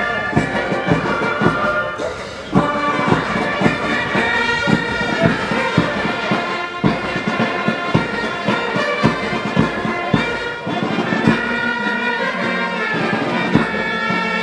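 Marching band playing a march: brass melody over a steady bass drum beat, about two strokes a second.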